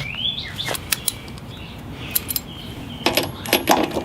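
Light metallic clinks and rattles of hand tools and small parts being handled: a few scattered taps, then a quick cluster of clinks about three seconds in.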